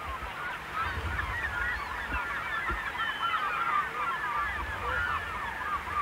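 A dense chorus of many birds calling at once: short, overlapping high calls with no pause, over a low, uneven rumble.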